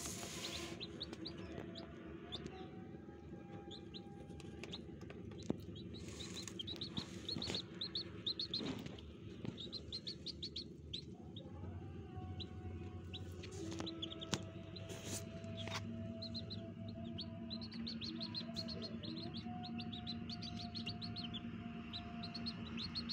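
A brood of newly hatched chicks peeping continuously, a dense stream of short, high cheeps. Faint sustained tones sit underneath and change pitch a few times.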